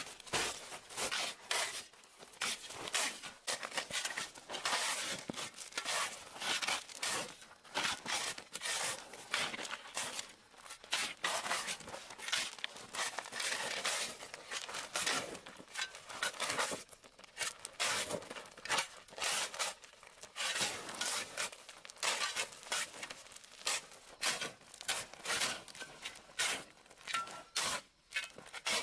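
Dense rustling and scraping: many short, noisy strokes in quick, irregular succession, broken by brief pauses.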